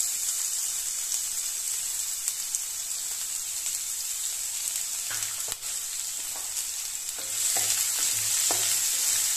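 Chopped onion sizzling in hot oil with cumin seeds in a nonstick pan. From about five seconds in, a wooden spatula stirs it with small knocks against the pan, and the sizzle grows louder near the end.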